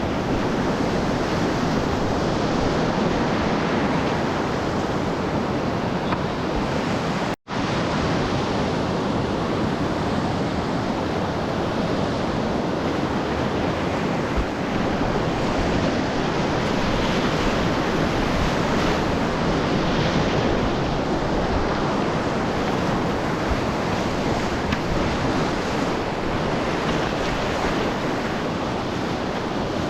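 Rushing whitewater of a class III river rapid, heard close-up as a steady, dense hiss of churning water with some wind on the microphone. The sound cuts out for an instant about seven seconds in.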